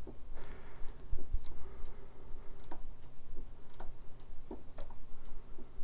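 Suzuki GSX 600F front brake lever being pumped by hand, giving short, sharp clicks about twice a second, while the brake system is bled and pressure is built up in the master cylinder.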